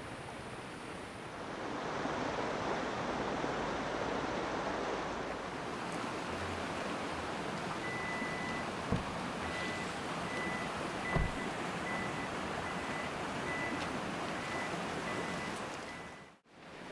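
Steady rush of a river flowing over rocks. A faint high tone pulses on and off through the second half, two brief low thumps come about halfway through, and the sound cuts out abruptly near the end.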